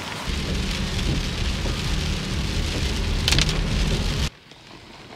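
Steady rain falling, with a heavy low rumble underneath. About four seconds in it cuts off suddenly to a much quieter hush.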